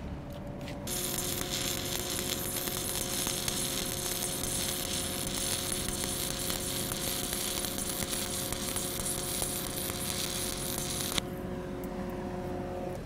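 Shielded metal arc (stick) welding with a Lincoln IronArc 7018 low-hydrogen electrode running a fill or cap pass on pipe: a steady crackling sizzle of the arc. It starts about a second in and cuts off suddenly near the end as the arc is broken. A steady hum lies underneath.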